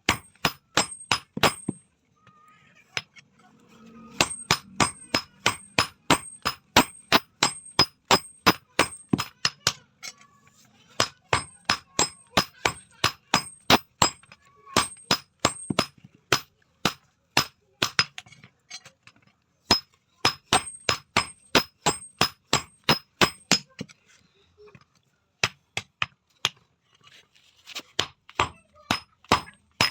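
Hand hammer striking steel in a blacksmith's hand forging, about three blows a second with a bright metallic ring after each. The blows come in runs broken by short pauses.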